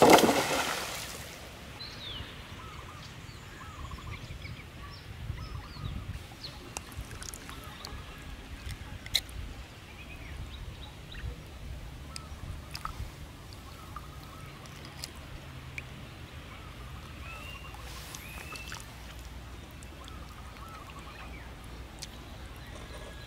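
A loud splash of pond water in the first second, then many short bird chirps and calls scattered through the rest.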